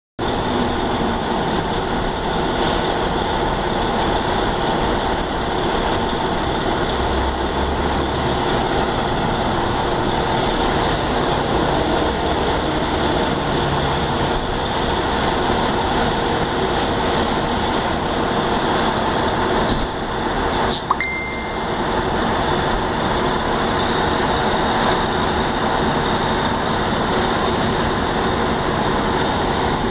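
Fire apparatus diesel engines running steadily inside the firehouse bay, with street traffic, as the rigs get ready to respond. A single sharp click with a brief ring comes about two-thirds of the way through.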